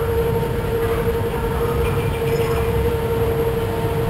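Log flume boat travelling along its water channel: a steady low rumble of water and the boat moving through the trough, over a steady hum.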